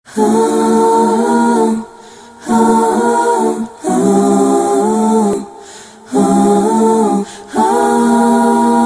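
Music of choir-like voices singing held chords in phrases of about a second and a half with short breaks between them, the last chord held longer.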